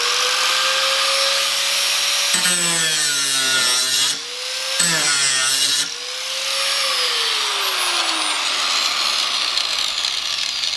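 850-watt budget angle grinder switched on and running free with no load, a steady motor whine over a rushing hiss. Its pitch drops briefly twice in the middle as the speed sags and picks back up, then sinks slowly over the last few seconds.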